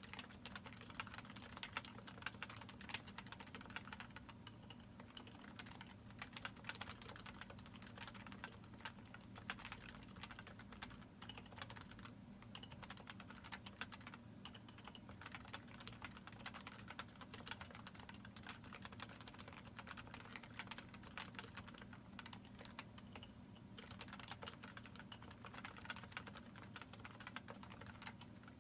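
Continuous typing on a Leopold FC660C Topre electrostatic-capacitive keyboard with PBT keycaps, variable-weight springs and unlubricated sliders and stabilizers: a dense, irregular run of keystrokes, with brief lulls about twelve seconds in and again a little before the end.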